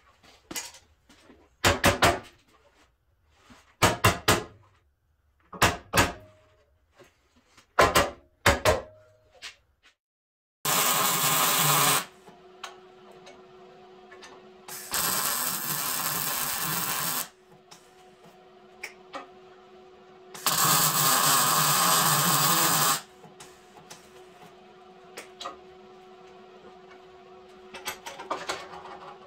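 Hammer blows on a steel Toyota Tacoma frame in quick groups of two or three, each ringing briefly, through the first nine seconds. Then three welds of about one to two and a half seconds each, tacking reinforcement plates onto the frame rail, with a steady hum between them and a few light metal clicks near the end.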